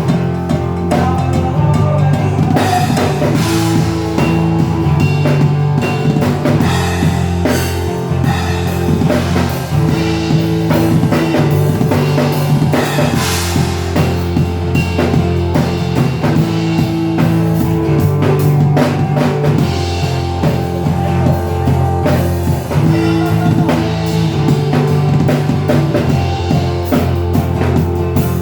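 A band playing an instrumental passage of a song: a drum kit with bass drum, snare and rimshots over steady bass notes and held chords, with no singing.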